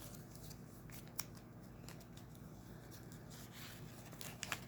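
Faint handling of a small folded paper leaflet: a few light clicks and soft rustles over a low steady hum.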